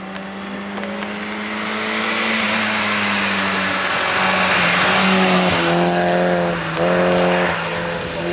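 Citroën AX hillclimb race car driving up through a bend and past at full effort, its engine note swelling as it nears and loudest about five seconds in. In the second half the engine note breaks off and picks up again twice.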